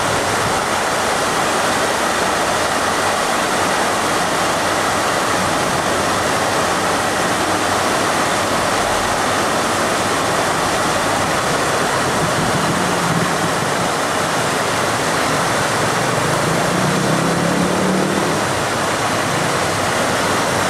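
Water rushing steadily along a narrow walled canal.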